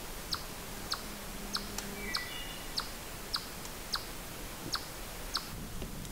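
Chipmunk chipping: about nine short, sharp, high chips at an even pace of a little under two a second, stopping near the end. It is the repeated alarm chip of a chipmunk disturbed by a person nearby.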